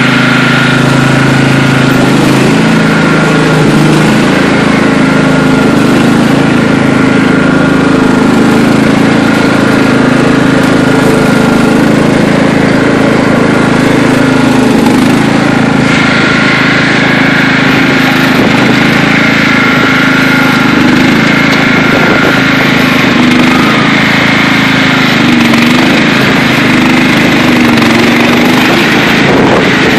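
Riding lawn mower's small gasoline engine running steadily and loudly while the mower is driven, its pitch wavering up and down with load. About halfway through, the sound turns brighter and harsher.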